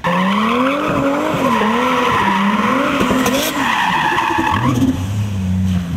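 Turbocharged straight-six engine of a Toyota Supra with a T67 turbo, its revs rising and falling over continuous tyre squeal while doing donuts. A little before the end the squeal stops and the engine settles to lower, steadier revs.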